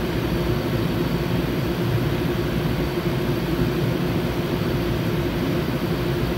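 Stulz air-conditioning unit running with its compressor and fans on, a steady hum with a few constant low tones over an even rush of air. The unit is cooling normally after its control wiring was repaired.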